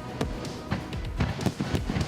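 Music with a rapid run of percussive hits.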